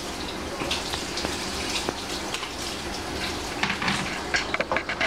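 A steady rushing hiss, with a quick run of clinks and clatters from kitchen utensils and cookware in the last second and a half.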